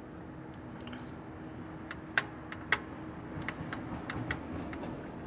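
Small sharp clicks from the throttle lever and linkage of a Linkert carburetor being worked by hand, two louder ones about half a second apart a little past two seconds in. A steady faint hum runs underneath.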